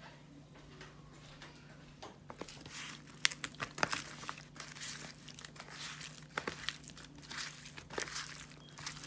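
Hands massaging dry seasoning into raw whiting fillets in a dish: irregular crackly rubbing and small sharp clicks, starting about two seconds in.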